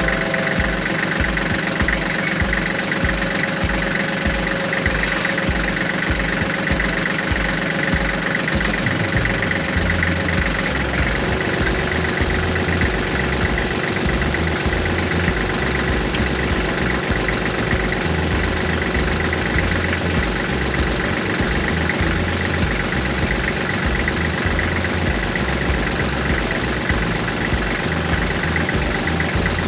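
Kubota L3400 tractor's four-cylinder diesel engine running steadily while the hydraulics are worked to free the backhoe from its pins. Its note changes about ten seconds in.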